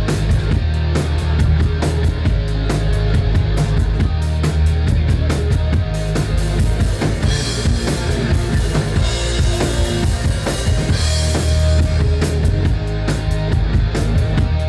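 Rock band playing live, loud and steady: drum kit with bass drum and snare, electric guitars and bass guitar.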